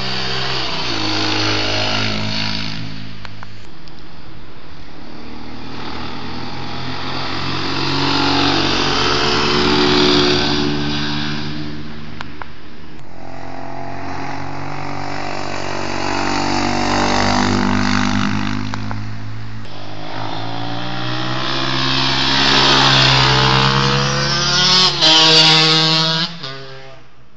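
Enduro motorcycle engines revving hard on a trail, pitch climbing and dropping back again and again as the riders work through the gears, swelling louder as bikes come close and go by, one after another. The sound cuts off suddenly near the end.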